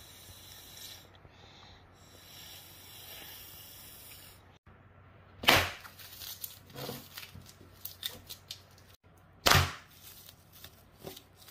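Thin plastic balloon film from a plastic-paste balloon toy being crumpled and squeezed by hand, crackling in sharp bursts, with two loud cracks about five and a half and nine and a half seconds in. A faint steady hiss comes before the crackling starts.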